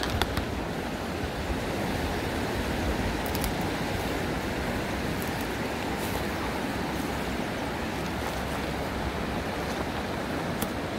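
Mountain river running over stones and riffles: a steady rush of water, with a few faint clicks near the start.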